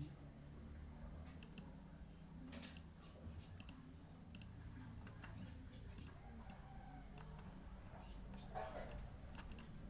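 Computer mouse clicking: faint, scattered single and double clicks, over a low steady hum.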